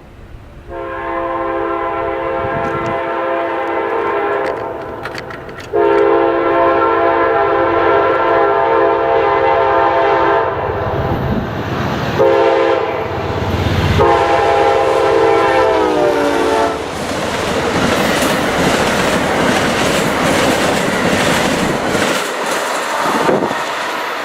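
Amtrak GE P42DC locomotive's air horn sounding a chord in the grade-crossing pattern, long, long, short, long, its pitch dropping at the end of the last blast as the engine passes. Then the passenger train rolls by, wheels clacking over the rail joints.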